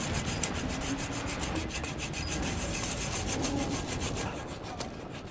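Hand saw rasping back and forth on a bike lock in quick, even strokes, which thin out near the end; the lock is hard to get through.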